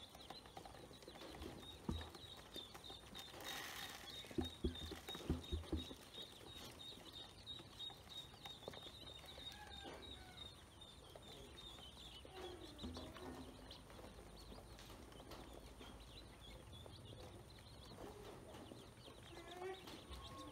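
Ducklings feeding in a plastic basin: soft pecking and tapping of their bills on grain and plastic, with a cluster of louder taps about four to six seconds in. Faint high chirps repeat in the background.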